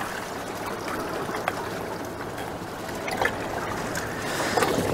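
Liquid trickling steadily, with a few light clicks.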